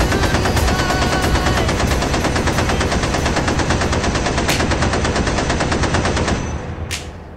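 Sound effect of sustained machine-gun fire: a fast, steady rattle of shots that dies away about six seconds in, with one last sharp crack near the end.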